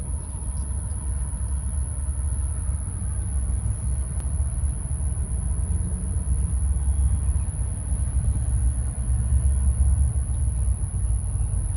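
Low, steady rumble of an EMD GP50's 16-cylinder two-stroke diesel as the locomotive approaches from a distance, slowly growing louder.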